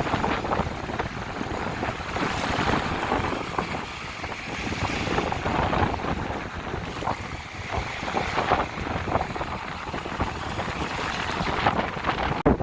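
Sea waves washing onto a beach, swelling and easing every few seconds, with wind rumbling on the microphone. There is a brief break near the end.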